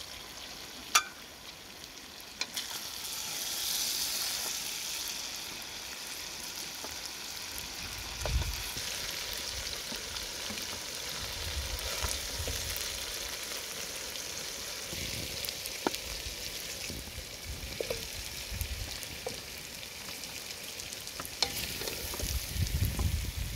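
Onions and frog pieces sizzling steadily in a metal pot over a wood fire, stirred with a ladle. A sharp metallic clink about a second in as the pot lid is handled.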